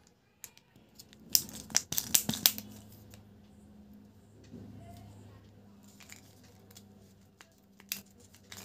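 Plastic candy packaging crinkling and crackling in the hands: a loud burst of crackles about a second and a half in, then quieter handling of a foil-sealed plastic candy egg with a few sharp clicks. A faint steady low hum runs underneath.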